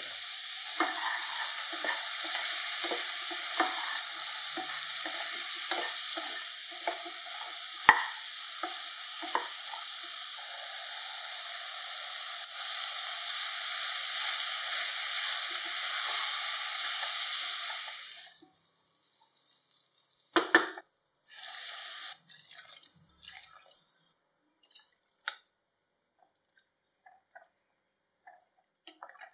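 Mixed vegetables frying with a steady sizzle in a dark pot, with short clicks and scrapes as a spatula stirs them. The sizzle cuts off about two-thirds through, leaving a sharp knock and scattered clinks of utensils against the pot.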